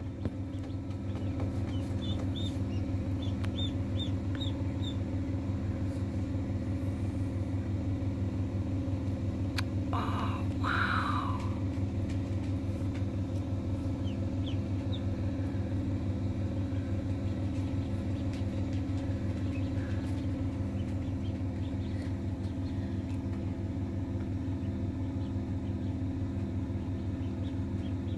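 Steady low hum of an incubator's motor and fan, with a few faint high peeps from newly hatched Silver Appleyard ducklings a few seconds in and a brief louder sound about ten seconds in.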